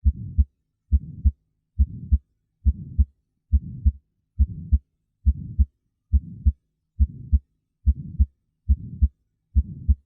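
Recorded heartbeat at about 70 beats a minute, twelve beats in all. Each beat is a pair of short low thuds, the first and second heart sounds, and the shorter gap between them is filled by a steady murmur: a systolic heart murmur.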